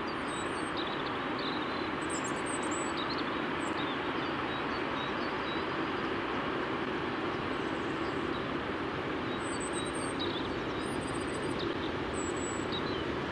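Diesel freight train approaching from a distance, a steady low rumble that grows slightly louder near the end, with small birds chirping over it.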